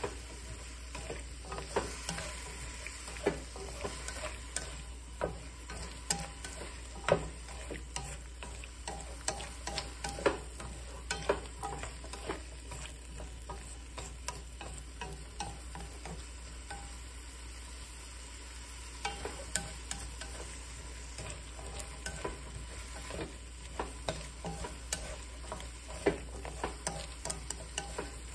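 Sliced bitter melon and garlic stir-frying in a nonstick wok: a steady sizzle with frequent irregular clicks and taps as wooden chopsticks toss the slices against the pan, over a low steady hum.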